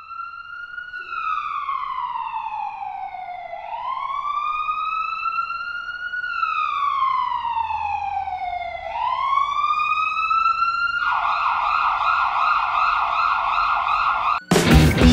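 Electronic ambulance siren in a slow wail, rising and falling in pitch about every five seconds. About eleven seconds in it switches to a fast yelp, and it cuts off near the end as loud rock music begins.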